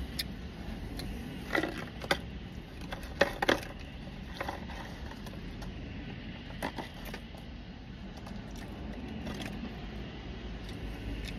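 Paper food containers being handled, with scattered clicks, taps and scrapes as fries are tipped from a tray into a paper cup and sauce is poured over them, over a steady low hum.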